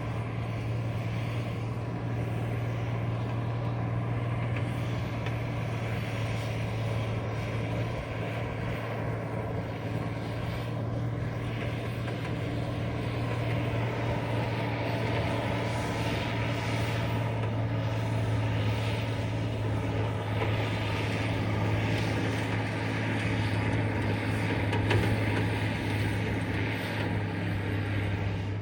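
Heavy snow-removal machine's engine running steadily with a deep hum, getting a little louder about halfway through.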